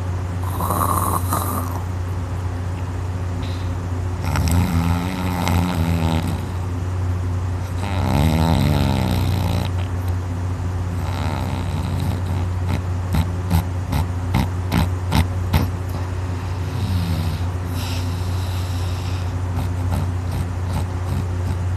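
A person passed out drunk on their back, snoring heavily with the soft palate and uvula vibrating. Two long, wavering snores come a few seconds apart, then a quick run of sharp clicks, about two a second, and a weaker snore near the end, over a steady low hum.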